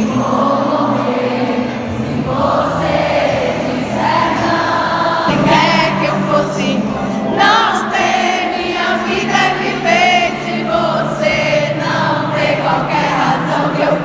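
Live pop concert heard through a phone recording: the band playing while a crowd sings along. The sound changes abruptly about five seconds in, where one clip cuts to the next.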